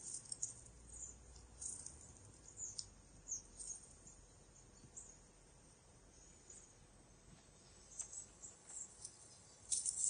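Faint, scattered high-pitched chirps of small birds from a bird video playing on a computer, with a louder cluster of chirps near the end.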